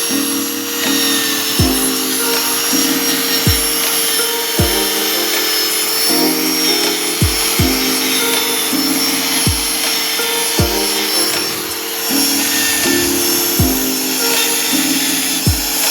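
Background music with held tones and a deep drum hit about every second or so, over a steady hiss throughout.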